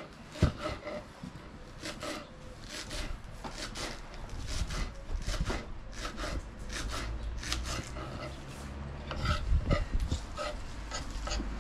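Repeated rasping, scraping strokes, about two or three a second, with a low rumble underneath from about four seconds in.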